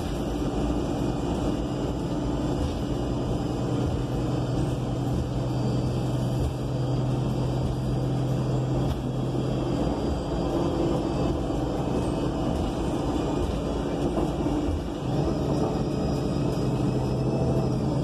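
Cummins Westport L9N natural-gas engine and drivetrain of a 2020 ENC Axess city bus running, heard from inside the passenger cabin with the air conditioning off: a steady low hum over a rumbling noise. The hum weakens about ten seconds in, and the sound dips briefly near fifteen seconds.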